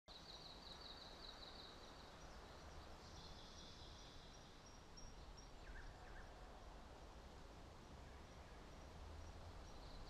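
Near silence: a faint, even outdoor hiss from a small trickling waterfall, with faint high chirping in the first few seconds and a brief chirp about six seconds in.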